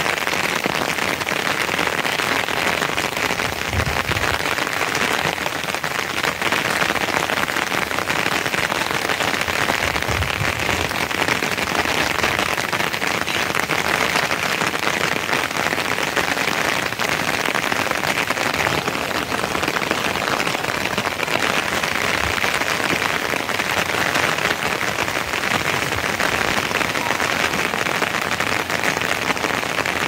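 Steady rain falling, an even hiss of drops on the ground and surroundings.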